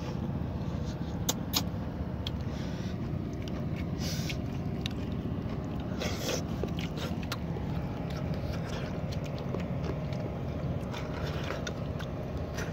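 Steady low engine hum, with a few sharp clicks and short scrapes of chopsticks against metal and ceramic bowls during a meal.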